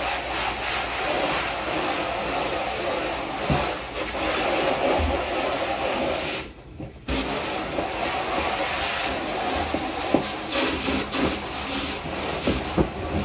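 Garden hose trigger nozzle spraying water inside a plastic drum, a steady hissing spray rinsing out the bleach. The spray cuts off for about half a second around the middle and starts again, with a few light knocks near the end.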